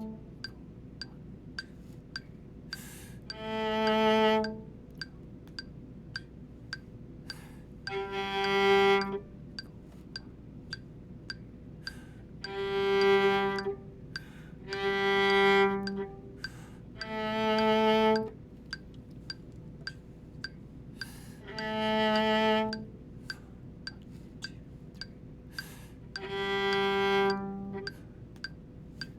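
Solo viola playing long bowed notes, about seven in all, each held about a second with gaps between, moving between two low pitches. A steady click keeps the beat underneath.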